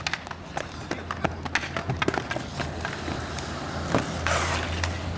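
Roller hockey play: inline skate wheels rolling on an asphalt court and many sharp clacks of hockey sticks on the pavement, with a longer scraping rush about four seconds in.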